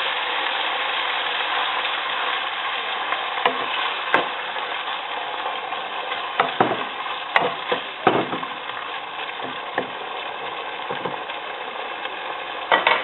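Ground pork sizzling steadily in a pan after a splash of water, the hiss easing off slowly, with the scrape and tap of a utensil stirring it every few seconds.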